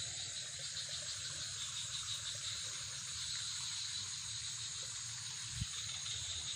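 A chorus of night insects keeps up a steady high-pitched chirring, with one soft low thump about five and a half seconds in.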